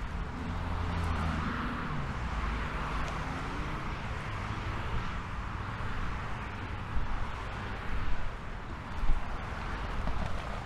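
Road traffic: cars passing in a steady wash of tyre and engine noise, one engine falling in pitch as it goes by a second or two in. A few brief louder knocks come in the last few seconds.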